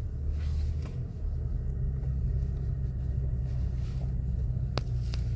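Toyota Tacoma's engine running at low revs as the truck crawls up a steep off-road climb in four-wheel drive, a steady low drone heard from inside the cab. A single sharp click near the end.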